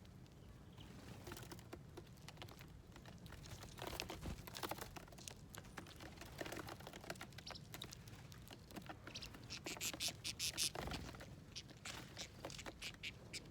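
Birds pecking at seeds and nuts on a feeding plate: quick, irregular taps and clicks, busiest about ten seconds in.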